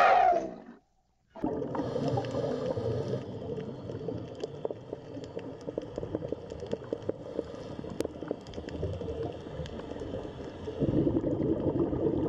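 An elephant's trumpet call dies away in the first second, falling in pitch. After a brief gap, steady underwater gurgling sets in, dotted with many small clicks, and grows louder near the end.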